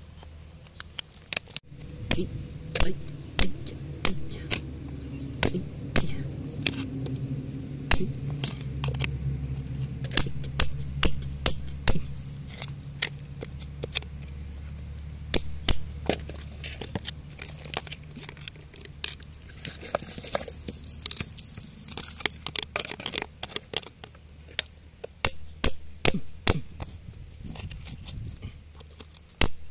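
Metal digging tool tapping and scraping against rock and packed soil, chipping earth away from around an embedded blue stone: many sharp irregular clicks and taps over a steady low hum, with a short hiss about twenty seconds in.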